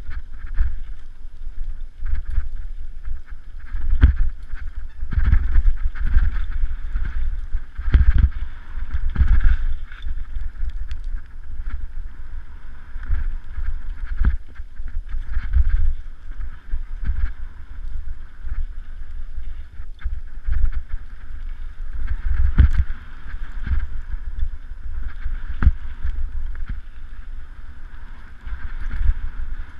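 Mountain bike ridden fast over a dirt singletrack. Wind buffets the microphone as a steady rumble, broken by irregular knocks and rattles as the bike hits bumps in the trail.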